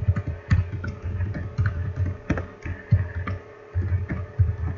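Typing on a computer keyboard: a quick run of keystrokes with a short pause about three and a half seconds in, then a few more keys.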